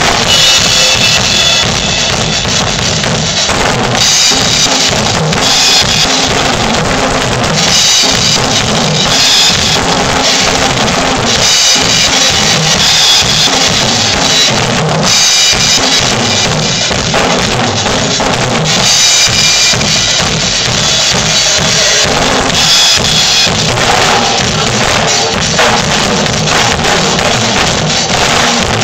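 Two drum kits, a black Ludwig and a red Pearl, played together: a continuous beat of bass drum and snare with cymbals ringing through much of it.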